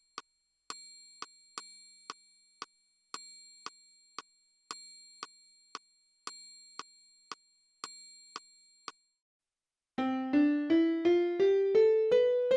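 Casiotone SA-50 mini keyboard: a metronome ticking about twice a second, with a bell-like accent on the first beat of each bar, stops about nine seconds in. About a second later, a rising one-octave scale is played in a piano voice, climbing note by note from around middle C and ending on a held top note.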